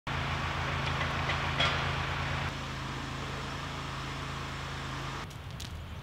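A vehicle engine running with a steady low hum and a regular low pulse, cutting off about five seconds in, with a couple of sharp clicks after it.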